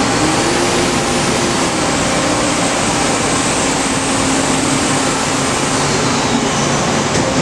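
Steady, loud machine-shop noise: an even rushing with a humming machine tone that rises near the start and shifts pitch now and then.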